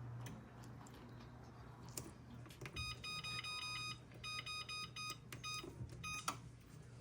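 Electronic oven control panel beeping as its buttons are pressed to set it to preheat: a quick series of short, single-pitched beeps of uneven spacing, starting about three seconds in, over a faint steady hum.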